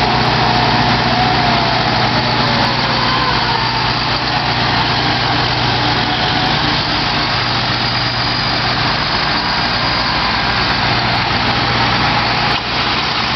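Engines of parade vehicles passing slowly close by, a John Deere tractor and then a large truck, making a steady low engine drone. A siren's falling wail trails off in the first second or two.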